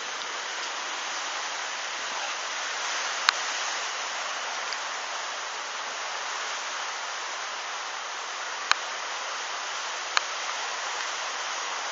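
Steady rushing hiss with no pitch, punctuated by three sharp single clicks.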